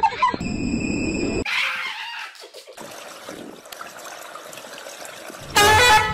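Water in a swimming pool: a steady noisy wash of water, then a sudden loud burst of splashing about five and a half seconds in as water is thrown up. Before it, about a second and a half of steady high-pitched tones over a low rumble.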